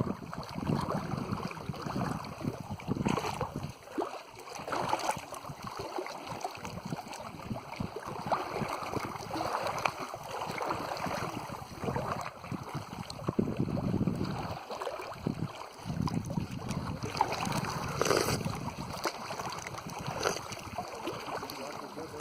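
Wind gusting across the microphone, with water lapping. The noise swells and drops irregularly.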